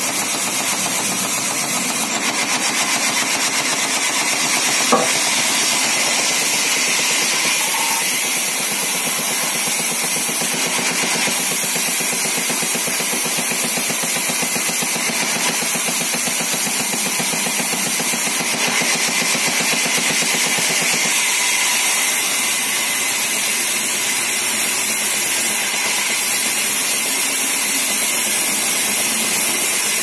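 Large sawmill band saw running, its blade cutting through heavy wooden beams with a steady, loud noise. A single sharp knock about five seconds in.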